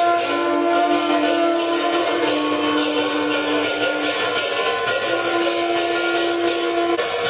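Arati bells and cymbals clanging in a fast, steady rhythm. Over them run long held low notes, typical of blown conch shells, which break off about seven seconds in.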